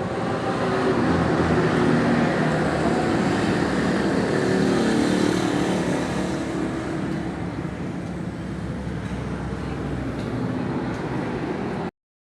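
CNC wood router running and cutting into wood, a steady machine noise that swells for a few seconds and then settles. It cuts off suddenly near the end.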